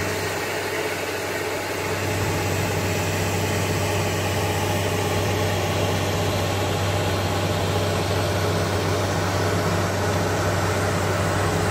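Heavy diesel earthmoving and drilling machinery running steadily: a constant low engine drone with a hiss over it, growing a little louder about two seconds in.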